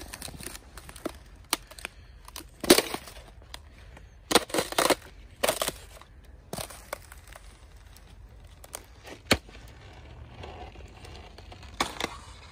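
Irregular sharp cracks and crunches, about half a dozen loud ones scattered through, with a quick cluster a little after the middle and the loudest about three seconds in.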